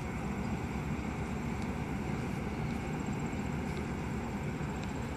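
Metra bilevel commuter train standing at the station platform: a steady low rumble with a faint steady high whine over it.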